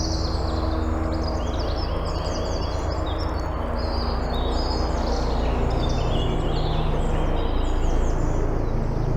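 A low, steady engine drone that shifts in pitch about halfway through, with songbirds chirping over it.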